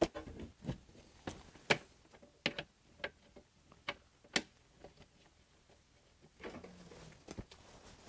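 Hard plastic clicks and knocks as a Ryobi ONE+ battery is put into the Ryobi ONE+ propane heater and the heater's housing is handled: about ten sharp clicks in the first four and a half seconds, then one more near the end.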